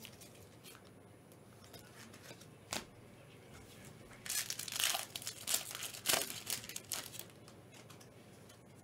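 A basketball trading-card pack's wrapper being torn open and crinkled by gloved hands, in a run of crackling from about four to seven seconds in. A single click comes a little before it.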